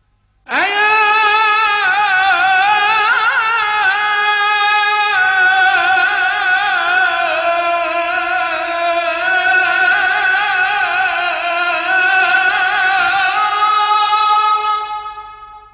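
A single voice singing an Arabic devotional supplication (ibtihal), holding one long drawn-out vowel in an unbroken melismatic phrase, its pitch wavering through ornate turns. It starts abruptly about half a second in and fades away near the end.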